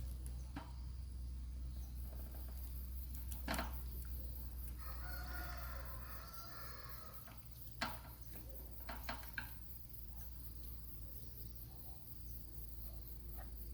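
A rooster crowing once for about two seconds in the middle, over a steady low hum, with a few sharp clicks before and after it.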